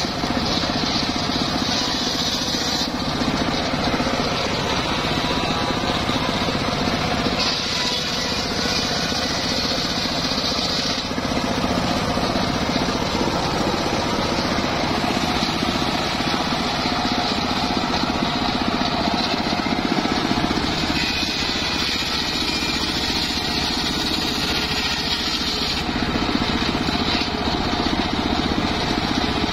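Homemade engine-driven circular saw bench ripping a teak log. The engine runs steadily, and a higher cutting noise from the large blade comes and goes three times as it bites into the wood.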